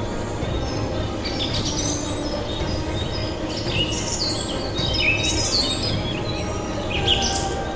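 Several birds chirping and calling in quick, short, sliding notes, bunched in flurries about a second and a half in, through the middle, and again near the end, over a steady low background.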